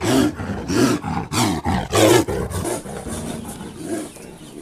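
A large wild animal roaring in a run of deep calls about every half second, loudest about two seconds in, then dying down.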